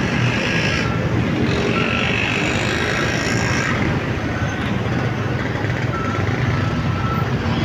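Steady road noise from a motorcycle riding in city traffic: its engine running under a wash of wind and tyre noise on a wet road, with other motorbikes, a truck and a bus close by.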